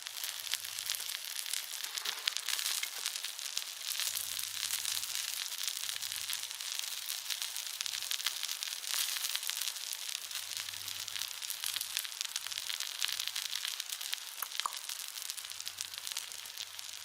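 Food frying in an iron frying pan over the fire: a steady sizzle with many small crackles and spits through it.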